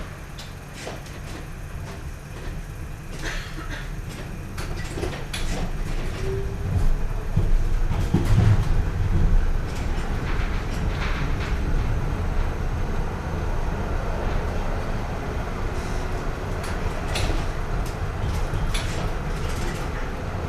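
Railway train running on the rails: a steady low rumble with scattered clanks and rattles, swelling louder about seven seconds in, with a faint thin whine now and then.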